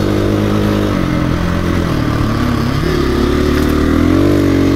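KTM 350 EXC-F dirt bike's single-cylinder four-stroke engine under way from the rider's seat: the revs drop about a second in, then climb from about two and a half seconds and ease off again near the end.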